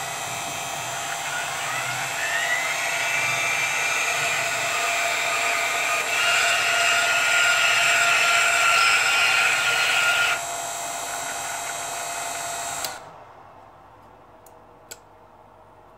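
TopCad RC tyre truing machine running with a steady electric motor whine that glides up in pitch a second or two in and steps up again about six seconds in. The whine drops back about ten seconds in and cuts off with a click about thirteen seconds in.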